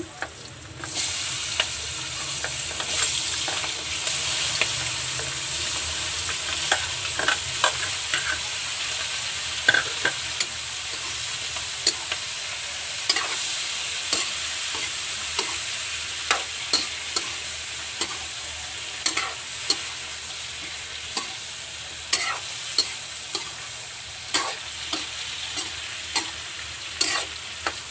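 Raw shrimp frying in hot margarine and garlic in a metal wok: a steady sizzle that jumps up about a second in as the shrimp go in. A metal spoon scrapes and clinks against the wok again and again as the shrimp are stirred.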